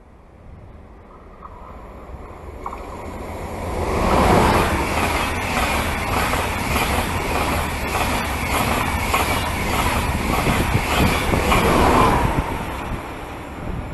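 ICE high-speed train passing through at speed without stopping. A rushing sound of wheels and air builds over about four seconds, stays loud with faint repeated clicks, and fades near the end as the last car goes by.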